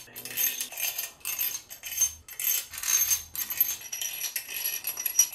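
Steel bedplate bolts of a Mercedes-AMG M156 V8 clinking and rattling against the bedplate and each other as they are set in and threaded by hand. A quick, uneven run of light metallic clinks with a faint high ring.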